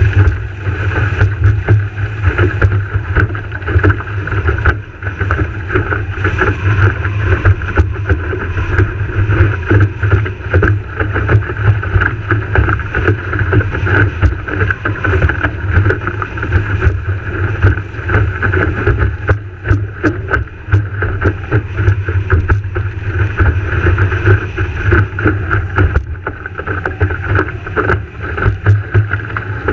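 Wind buffeting the microphone in a steady low rumble, with water rushing along the hull of a Farr 3.7 sailing skiff under way and frequent small slaps and clicks.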